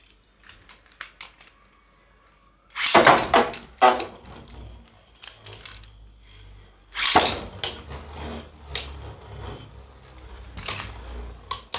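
Two Beyblade Burst spinning tops, Spriggan Requiem against Legend Spriggan, land in a plastic stadium about three seconds in with a loud clatter. They then spin and rattle in the bowl, clashing loudly again about seven seconds in, with single sharp clicks as they knock together afterwards.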